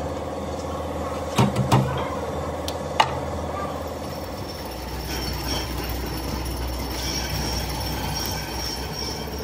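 Coils of enamelled copper winding wire being handled on a workbench, with a few sharp clicks and knocks about one and a half and three seconds in, over a steady workshop machine hum. A faint high whine joins about halfway through.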